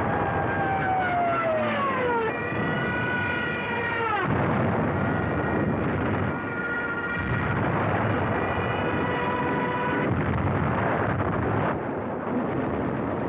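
Battle sound effects on a 1940s film soundtrack: a continuous rumble of explosions and noise. Over it, a whining tone falls in pitch twice in the first four seconds, then holds steady notes until about ten seconds in.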